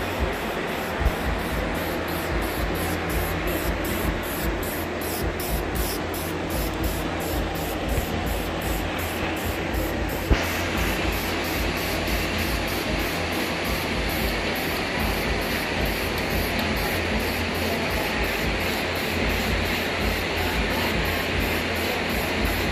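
Aerosol spray cans of primer spraying in long passes, with background music playing alongside; the sound changes about ten seconds in.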